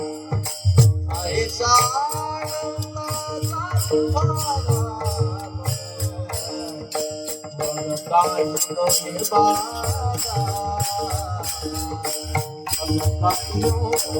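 Devotional kirtan music: a voice sings a wavering, ornamented melody in two long phrases over steady held drone notes. Fast, even metallic percussion clicks and low drum beats run underneath.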